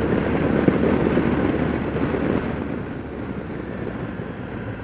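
Wind rushing over the microphone while riding a Can-Am Spyder F3 three-wheeler at street speed, with the trike's engine and road noise underneath. The stock windshield throws the wind straight at the rider's head. The rush eases after about two and a half seconds as the trike slows.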